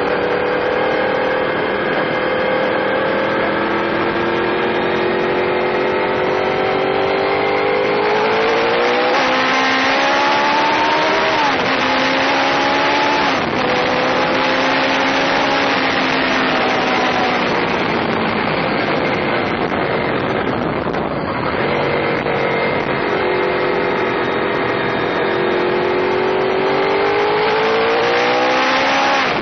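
Honda VFR800FI's V4 engine pulling the motorcycle along on the move, with wind rushing over the on-board microphone. The engine note climbs about a third of the way in, drops twice as it shifts up, holds steady, eases off briefly, then climbs again near the end.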